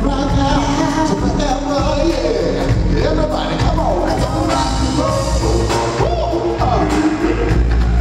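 Live R&B band playing, a lead singer over drums and keyboards with a heavy low end.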